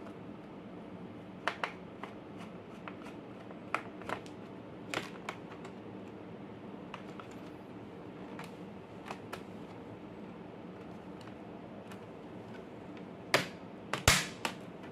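Scattered light clicks and taps of hands handling laptop parts, with a louder cluster of clicks near the end, over a steady low hum.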